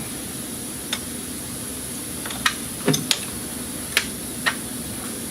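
About six short, sharp clicks and light taps spread over a few seconds as cooling-system parts are handled: a plastic thermostat housing, coolant hose and hose clamp. A steady hum runs underneath.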